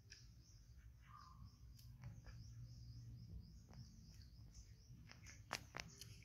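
Near silence outdoors: faint, steady high-pitched chirping in the background, with a few sharp clicks about five and a half to six seconds in.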